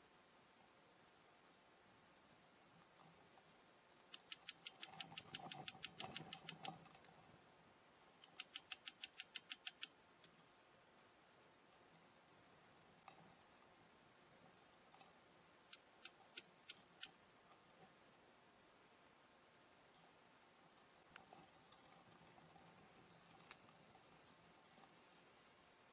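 Hand tool clicking during work on an excavator's boom cylinder: two runs of rapid, evenly spaced clicks lasting a few seconds each, then a handful of separate, louder clicks.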